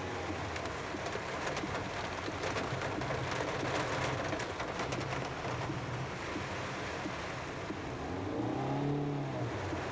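Heavy rain drumming on a car's roof and windshield, heard from inside the cabin, with the car's engine running low and steady underneath as it creeps through flooded traffic. The patter of drops is thickest in the middle.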